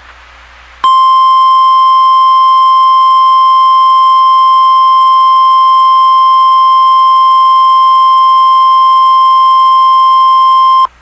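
Emergency alert attention tone: a single steady beep near 1 kHz, in the style of the National Weather Service 1050 Hz warning alarm. It comes on abruptly about a second in, holds very loud with a buzzy edge for about ten seconds, and cuts off suddenly.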